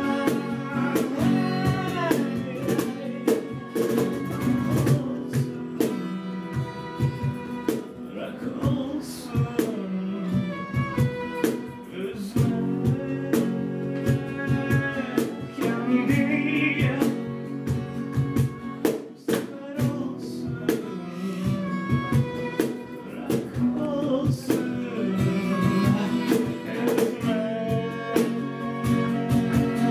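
Live acoustic trio: a bowed violin melody over acoustic guitar and a steady beat of cajón strikes.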